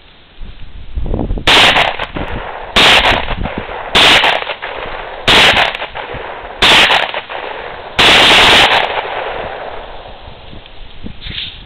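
CZ52 pistol firing 7.62x25mm Tokarev military ammunition: six loud shots spaced about a second and a quarter apart, each ringing out after the blast, the last one drawn out longer.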